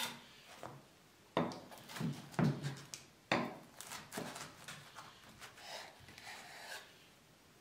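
Kitchen knife cutting through a baked pide flatbread on a wooden cutting board: three sharp strokes about a second apart, starting a little over a second in, then lighter crackling cuts.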